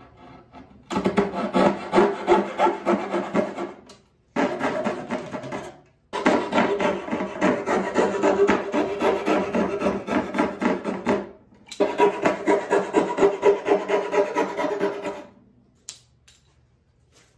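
Coping saw cutting across the end of a pine board with quick back-and-forth strokes, removing the waste between tenons. The sawing comes in four stretches with short breaks between them.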